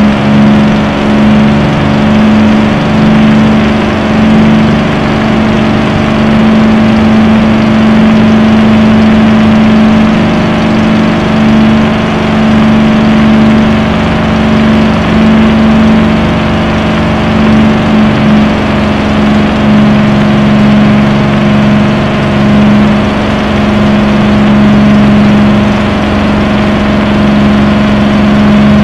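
Supermarine Spitfire's V12 piston engine running steadily at high power through the takeoff roll and climb-out, a loud, unbroken drone heard from the cockpit.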